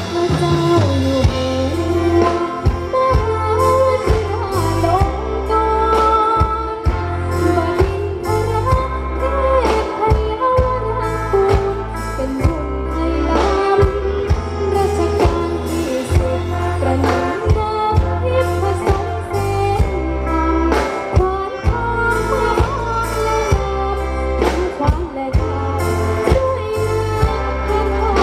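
A song with a singing voice over a steady drum beat and a deep bass line, amplified through a stage sound system.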